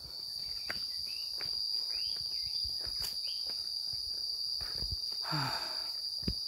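Insects shrilling in one steady high tone, with footsteps on a dirt path and a few short chirps in the first half.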